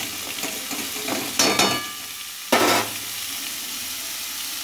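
Pumpkin pieces sizzling in hot oil in a metal kadai while a metal spatula stirs them, scraping against the pan. A ringing metal clink comes about a second and a half in and a louder scrape about a second later, then the frying sizzle goes on steadily.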